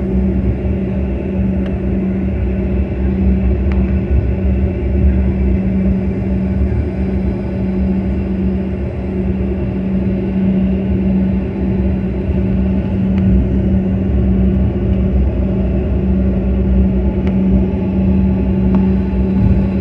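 Cabin noise of a CRJ-200 regional jet taxiing: its two rear-mounted GE CF34 turbofans at idle give a steady hum over a low rumble from the ground roll.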